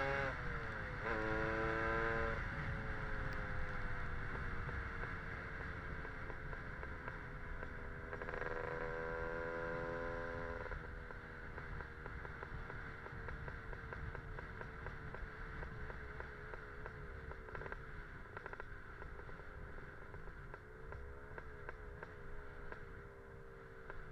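Lambretta scooter with a Casa Performance SSR265 two-stroke engine kit, ridden in slow traffic. The revs drop away sharply at the start, rise briefly, pull harder for a couple of seconds around the middle, then run low and steady with small blips of throttle near the end, over a low wind and road rumble.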